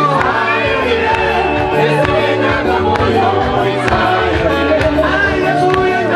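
Upbeat music played over a loudspeaker: singing over a steady, repeating bass line.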